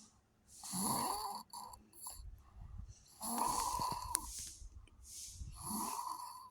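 A person snoring in sleep: three snores about two and a half seconds apart, with a short click during the second.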